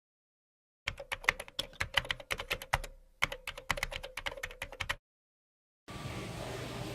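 Rapid computer-keyboard typing, many keystrokes a second with a short break midway, that cuts off suddenly. A steady hiss starts near the end.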